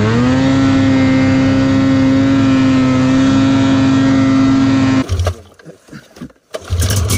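Snowmobile engine running at high revs, its pitch dipping then climbing right at the start and then held steady. It cuts off abruptly about five seconds in, and a lower engine sound comes back near the end.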